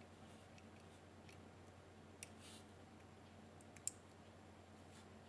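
A few faint, small clicks, the clearest about two and four seconds in, as a microSD card is pushed into the card slot of an SQ11 mini action camera.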